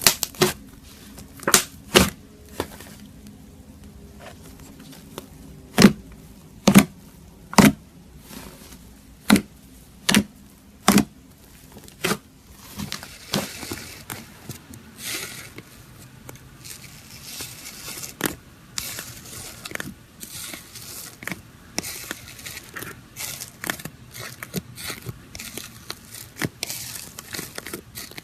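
Slime being squeezed and poked by hand: a string of sharp pops, then a denser run of fine crackling and squelching.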